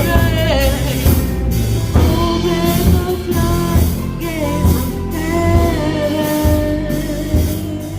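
Live worship music: a band with drums and bass plays under held, sustained singing.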